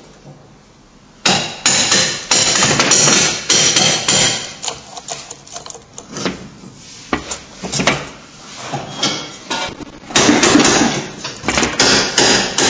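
Rapid, irregular metallic knocking and clattering from a VAZ 2107's removed driveshaft as it is handled at its center support bearing. It starts about a second in, eases off midway and turns loud again near the end.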